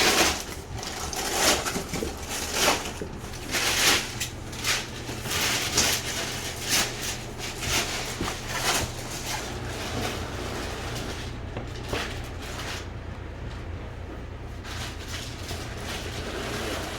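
Large cardboard TV box and its packaging being handled: irregular scraping and rustling for about nine seconds, then quieter. A steady low hum runs underneath.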